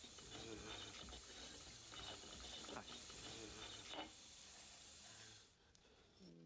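Water running from a washbasin tap, stopping about five and a half seconds in, with a few faint squeaky clicks over it.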